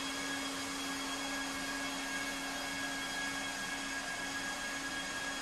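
LIUDU TOP3400C automatic hot-air PVC welding machine running as it travels along a membrane seam: an even blower whoosh with a steady low hum and faint higher whine, unchanging throughout.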